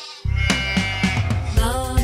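Background music for a children's cartoon: repeating bass notes under a bright, bending melody line.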